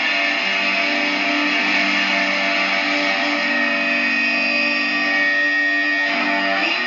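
Electric guitar noise played through distortion and effects: a dense, steady wall of sound with held feedback tones running through it. The texture shifts about six seconds in.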